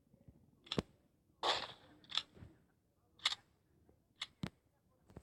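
Mosin-Nagant bolt-action rifle being worked: a series of sharp metallic clicks spaced about a second apart, with a short sliding rasp about a second and a half in.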